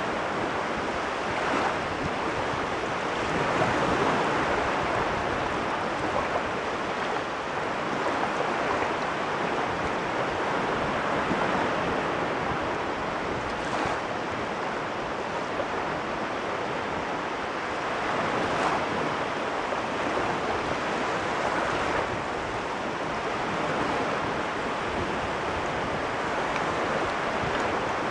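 Caspian Sea waves washing in a continuous rush that swells and eases every few seconds.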